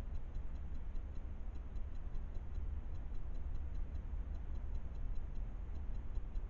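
Steady low rumble with faint, evenly spaced ticking, about three to four ticks a second.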